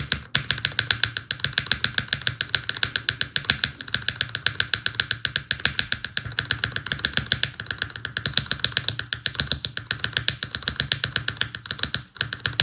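Electronic background music with a fast, even beat and held tones.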